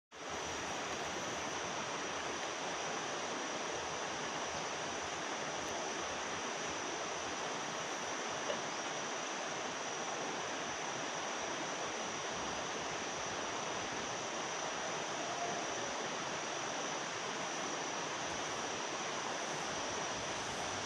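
Steady rushing of flowing water, such as a river running high after a flood, with a faint steady high tone held above it and one small click about eight seconds in.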